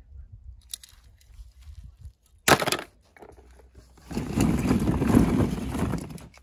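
Hollow plastic ball-pit balls clattering and rubbing against each other and a plastic tub as a hand rummages through them, loudest for a couple of seconds near the end, with a single sharp knock about two and a half seconds in.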